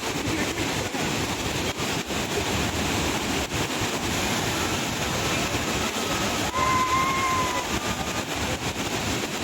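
Steady rushing roar of the Athirapilly waterfall, an even wash of falling water.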